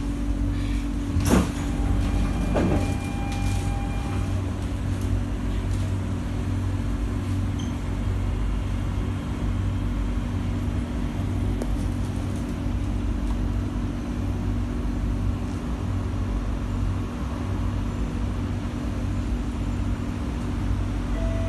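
Stationary SMRT C151A metro train: a sharp clunk about a second in as the saloon doors open, a second weaker knock and a short steady tone, then the steady low hum of the train's onboard equipment at standstill. A chime tone begins near the end.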